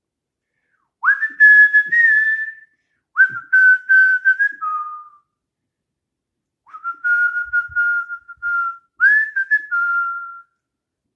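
A man whistling a slow melody in four phrases, each opening with a quick upward slide into long held notes, the later phrases a little lower. It stands in for a chorus between the sung verses.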